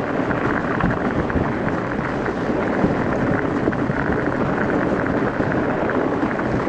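Fat bike on studded tyres rolling over glare ice: a steady rolling rumble with dense fine clicking from the studs on the ice.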